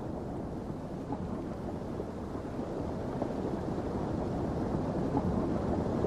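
Rushing water of a cold mountain stream, a steady low rumble that grows slightly louder.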